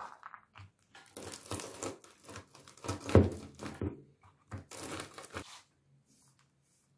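Wooden rolling pin rolled over pecans on a plastic cutting board, the nuts crackling and crunching as they are crushed, in about three passes with the loudest crunch about three seconds in.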